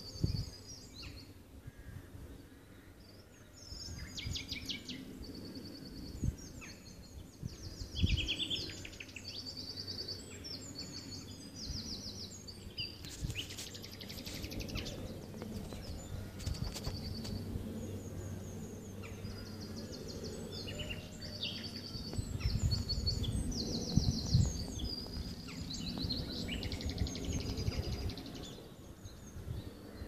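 Common nightingale singing: a string of short phrases of rapid repeated high notes with brief pauses between them, over wind buffeting the phone's microphone that gusts harder later on.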